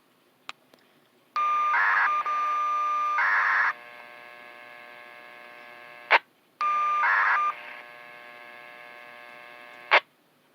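Federal Signal siren-system polling signals heard over a radio: two transmissions, each opening with loud, steady, buzzy data tones and then dropping to a quieter hiss. Each ends in a sharp click, the first about six seconds in and the second near the end.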